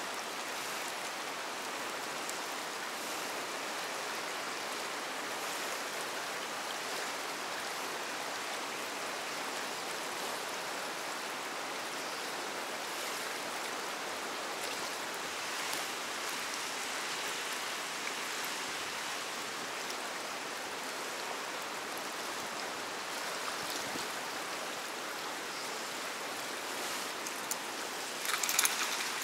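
Fast-flowing river water rushing and churning, a steady even rush. Near the end, a brief clatter of clicks and knocks.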